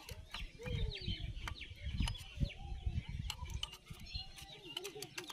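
Scattered sharp clicks and light taps of metal tools and engine parts being handled, with a few dull thumps. Short wavering calls sound in the background.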